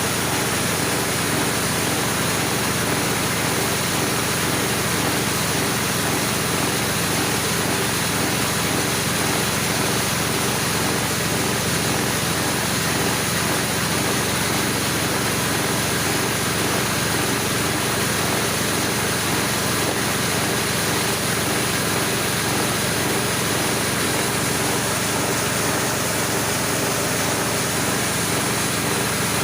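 Homemade corn grinding machine running steadily, a constant machine drone with no change in speed.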